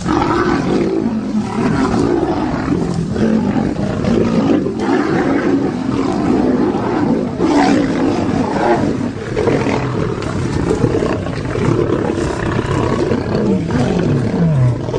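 A pride of lions growling continuously while fighting Cape buffalo, with a few falling growls near the end.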